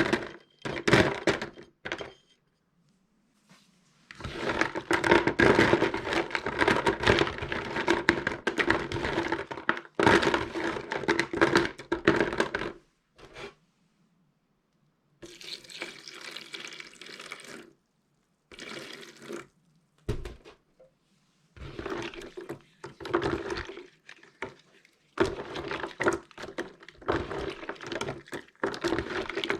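Pieces of soap being washed in water: splashing and wet rubbing in stretches of a few seconds, each ending in an abrupt cut to silence, with a few sharp knocks.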